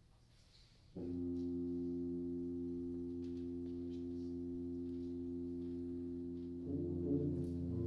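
Concert band's low brass and low reeds holding a sustained tuning note that starts about a second in. About 6.7 s in more instruments join and the note grows louder and fuller, with some wavering in pitch.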